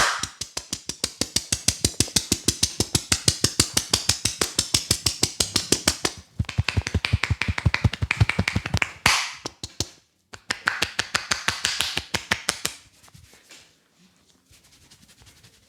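A barber's hands rapidly slapping and tapping on a head during a head massage, an even run of about six or seven sharp claps a second. It breaks off briefly twice and stops a few seconds before the end.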